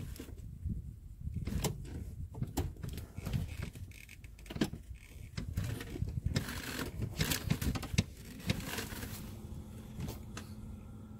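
Scattered light clicks and knocks of handling inside a truck cab, over a low rumble, just before the stereo is switched on to test a newly fitted door speaker.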